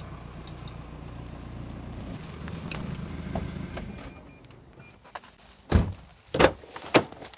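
A low mechanical hum that fades out over the first four seconds, then three loud knocks about two thirds of a second apart near the end.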